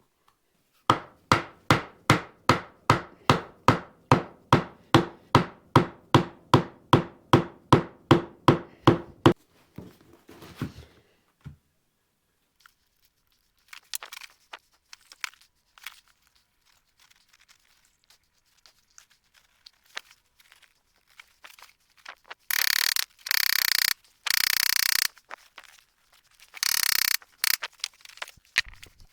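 A hammer or mallet striking wood in a quick even rhythm, about three blows a second for some eight seconds, each blow with a short ringing note: a glued leg being driven into its hole in the chopping block. Near the end come a few loud bursts of rushing noise, each about a second long.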